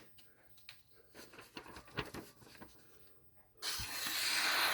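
Sharpened kitchen knife slicing through a sheet of paper, a hissing paper cut lasting about a second near the end, after a few light paper rustles and clicks.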